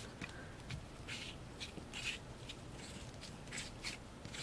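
Several faint, short scraping strokes of a palette knife spreading whipped spackle paste across a plastic stencil.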